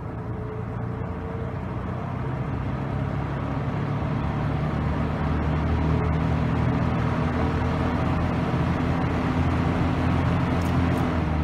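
Dayton Model 4C418 20-inch box fan starting up on medium speed. Motor hum and the rush of air grow louder over the first several seconds as the blades come up to speed, then hold steady.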